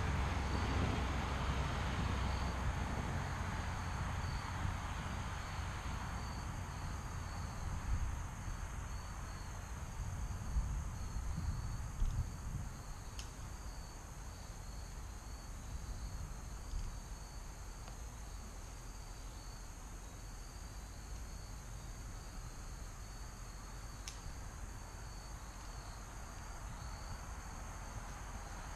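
Crickets chirping steadily, a continuous high trill with a pulsing chirp beneath it. A low rumble is strongest at the start and fades over the first few seconds.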